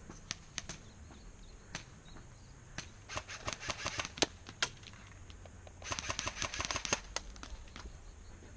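Airsoft guns firing: a few single shots, then two rapid full-auto bursts, each about a second long, around three and six seconds in.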